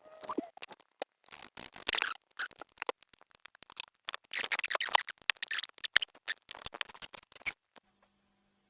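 Hand reassembly of a Range Rover L322 air-suspension compressor: irregular clicks, scrapes and rattles of its parts being handled and fitted together. The noises stop near the end.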